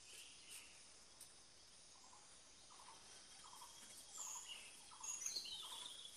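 Faint birds calling: a short note repeated about two or three times a second, starting about two seconds in, with higher chirps over it.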